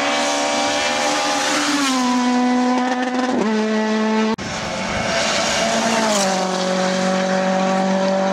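Rally car engine running hard, its pitch holding steady for a second or two and then dropping several times, with an abrupt cut about halfway through.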